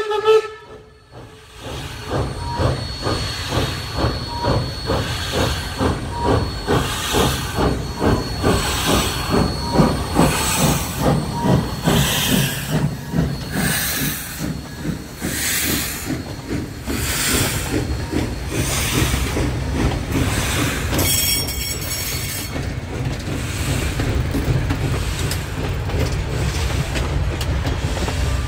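Steam locomotive passing slowly with a rhythmic beat of about one stroke a second and hissing steam. About three-quarters of the way through, the passenger coaches roll by with a steady rumble and a brief wheel squeal.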